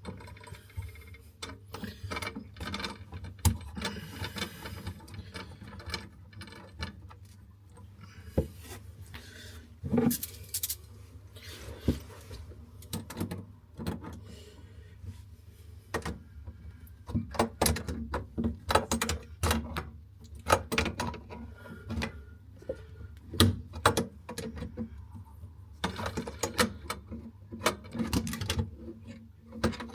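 Plumbing hand tools working on metal pipework and fittings: irregular clicks, knocks and rattles, busiest in the second half.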